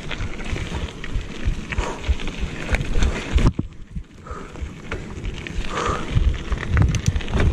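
Wind buffeting the microphone over the rumble and rattle of a mountain bike riding a rough dirt trail, with scattered clicks; the noise drops away briefly about three and a half seconds in.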